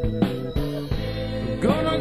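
A band's song playing: drums and sustained instruments, with a sung note that slides up about one and a half seconds in and then holds.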